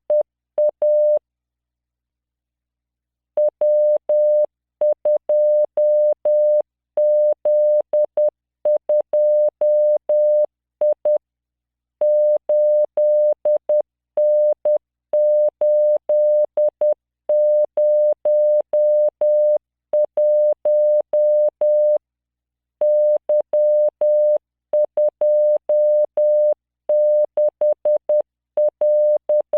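Morse code practice tone from the LearningMorse training software: a steady 600 Hz tone keyed into dots and dashes at 10 words per minute. It sends random five-character practice groups, with short pauses between the groups and a longer break about a second in.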